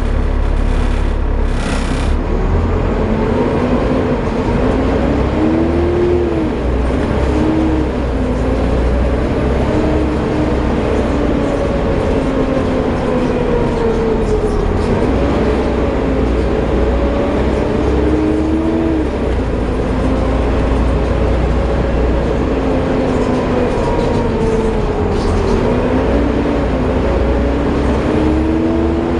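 Volvo B7TL double-decker bus under way, a steady low engine rumble beneath a drivetrain whine that rises and falls in pitch several times as it speeds up and slows. This is the vacuum-cleaner-like whine behind its 'Hoover' nickname.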